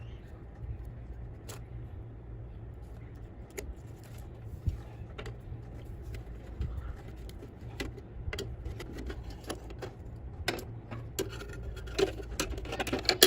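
Scattered light clicks and taps, coming more often near the end, over a steady low hum.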